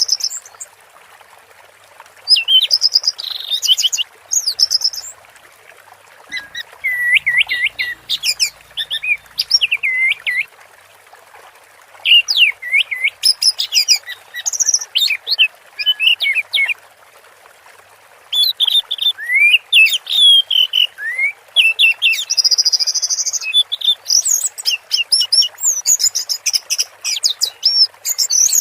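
Orange-headed thrush singing in full 'teler' song: bursts of rapid, varied whistled phrases a few seconds long, with short pauses between, over a steady background hiss.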